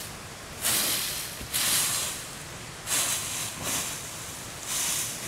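Footsteps crunching through dry fallen leaves, about five steps roughly a second apart.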